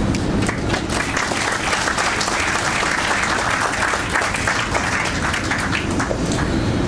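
Audience applause: many hands clapping at once, holding steady.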